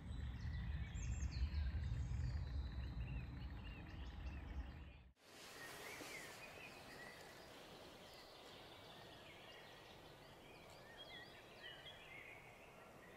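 Songbirds chirping and trilling against a steady outdoor background hiss. For the first five seconds a heavy low rumble on the microphone, the loudest sound, sits beneath them and cuts off abruptly.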